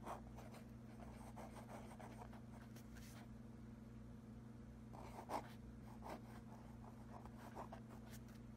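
Fountain pen's metal nib scratching across lined notebook paper in short, faint strokes as it writes in cursive, with a sharper tick about five seconds in. A steady low hum runs underneath.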